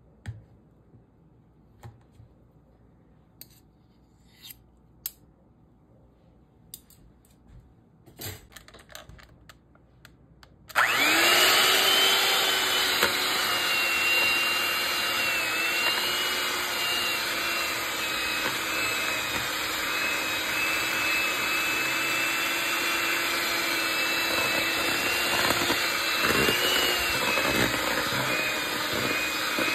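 A few light clicks, then about ten seconds in an electric hand mixer starts suddenly and runs steadily, beating boiled potatoes and butter into mash. Its whine wavers slightly in pitch as it works.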